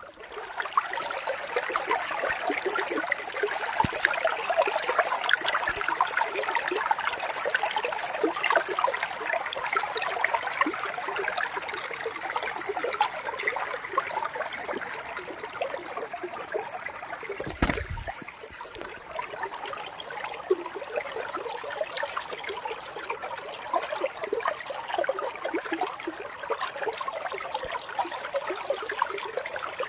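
Water trickling and babbling steadily, as a small stream or runnel does, with a single sharp click a little past the middle.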